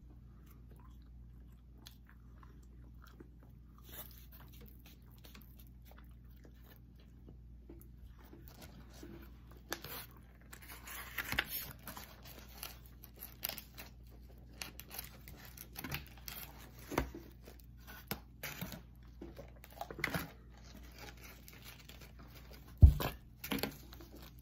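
Close-up eating sounds of pizza and cheese sticks: quiet at first, then chewing, crunching and crackling as food is handled over a cardboard pizza box. There is one sharp thump near the end.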